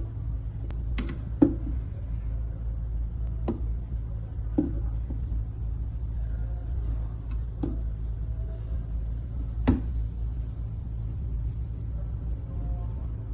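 Toilet cistern fittings being handled: about six sharp clicks and knocks, spaced irregularly, over a steady low rumble.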